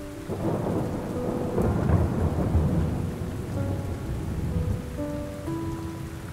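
Steady rain with a deep rolling rumble of thunder that swells over the first couple of seconds and then fades, alongside faint ambient music of long held notes.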